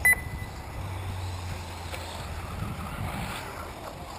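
A short, loud electronic beep right at the start, then a steady rushing noise with a low hum from the 1/8-scale electric RC buggies running on the dirt track and wind on the microphone.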